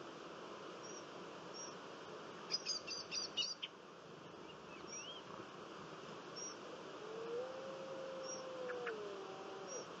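Early-morning countryside ambience: small birds giving short high chirps every second or so, with a quick run of several high notes a few seconds in, over a steady low hiss. Near the end a long, smooth, low drawn-out tone rises, holds and falls away.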